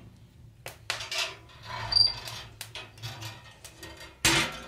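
Fire crackling with small clicks and pops in a steel wood stove, a brief high squeak about two seconds in, then a loud metal clank near the end as the stove door is shut.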